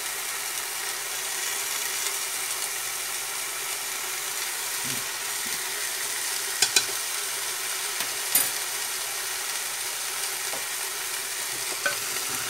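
Meat and cassava chunks sizzling as they fry in an aluminium pressure-cooker pot, stirred with a wooden spoon. There are a few sharp knocks of the spoon against the pot: two close together a little past halfway, one shortly after, and one near the end.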